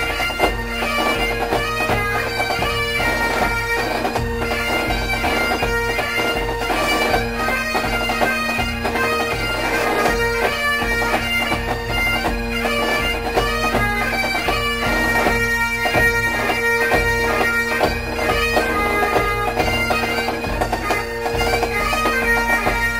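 Bagpipes playing a marching medley: the melody moves over steady, unbroken drones, with drum beats underneath.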